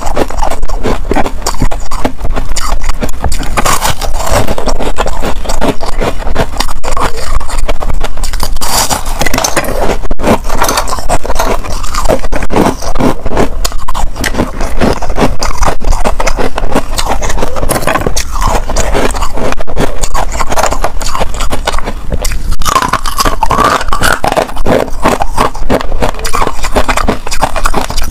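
Hard frozen ice being bitten and chewed right at the microphone: loud, dense crunching and crackling, one crunch after another with barely a pause.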